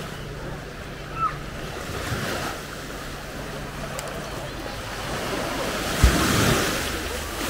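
Small Baltic Sea waves washing onto a sandy beach, with a louder wash near the end.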